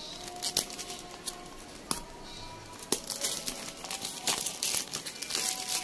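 Clear plastic wrap crinkling as it is pulled off a small cardboard box, in a run of uneven crackles.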